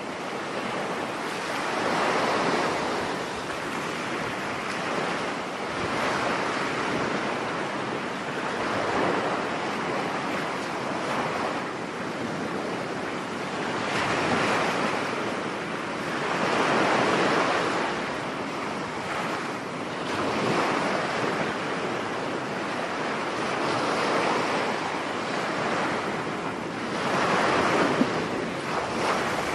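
Rough sea surf breaking on a beach in a storm, the wash surging and falling back every few seconds, with wind.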